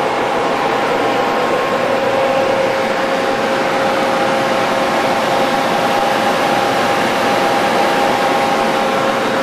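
Steady hum and hiss of running factory machinery, with a few constant whining tones and no press strokes or feed movements: the hitch feed press is standing stopped at its batch count.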